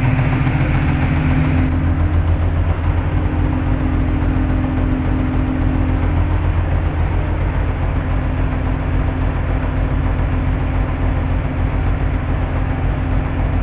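Hyundai Tiburon engine with aftermarket camshafts idling steadily.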